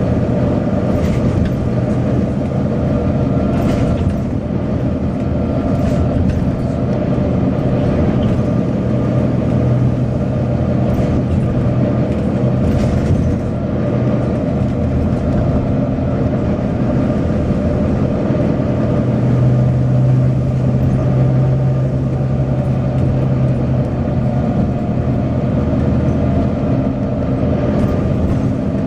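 Volvo B9TL double-decker bus's six-cylinder diesel engine running, a steady drone that strengthens for a few seconds about two-thirds of the way through, with occasional short rattles.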